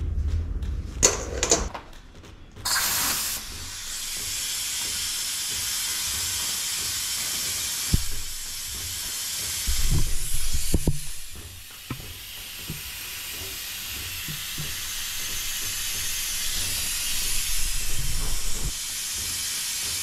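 Vacuum pump hose sucking residual oil and air out of a motorcycle fork tube. It makes a steady hiss that starts about three seconds in, with a few low thuds from handling midway.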